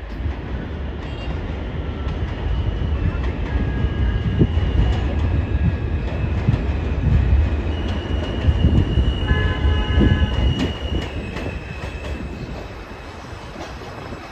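New York City subway train pulling into an elevated station: a steady low rumble of wheels on the track, with high-pitched squeals coming and going as it draws near. It is loudest as it passes close, then fades near the end.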